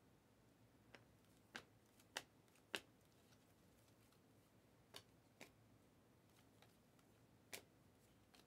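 Near silence broken by about seven soft flicks and clicks of glossy trading cards being slid one behind another through a stack in the hand, three of the loudest coming close together a couple of seconds in.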